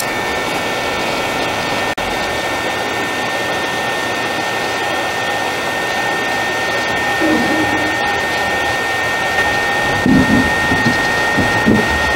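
Hot-air rework station blowing steadily, a fan hiss with a high whine, heating the eMMC flash chip on the TV's main board to solder it.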